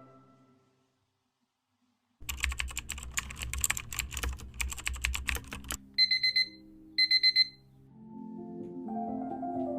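A quick run of rapid clicking for about three and a half seconds, like typing on a keyboard, followed by two short bursts of high electronic beeping about a second apart. Soft music comes back in near the end.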